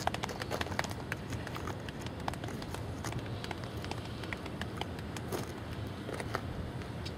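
Double-stack container freight train rolling past on an elevated bridge: a steady low rumble with scattered sharp clicks and clanks from the wheels and cars.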